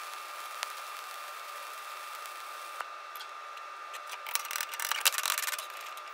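Steady hiss of a stick-welding arc burning an E7018 low-hydrogen rod, ending about three seconds in. Then a run of metallic clatter and knocks as the welded steel plate is handled.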